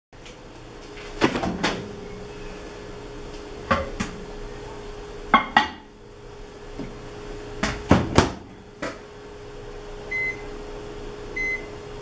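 Clacks and knocks from loading a Consul built-in microwave oven and shutting its door, over a steady low hum, then two short beeps from its touch panel near the end as it is set.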